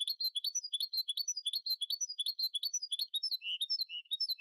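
Male goldfinch × canary hybrid (mixto de jilguero) singing: a fast run of repeated high chirping notes that shifts to a lower-pitched repeated phrase about three seconds in.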